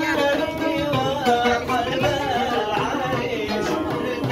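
Yemeni zaffa wedding song: singing with hand drums keeping the beat.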